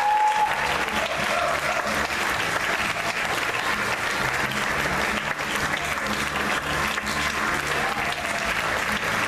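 Audience applauding with steady clapping, with a few short whoops and cheers over it near the start and again near the end.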